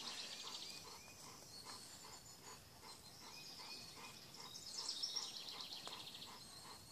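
Faint outdoor ambience: a high, fast-pulsing insect-like drone that swells about five seconds in, with soft chirps repeating throughout.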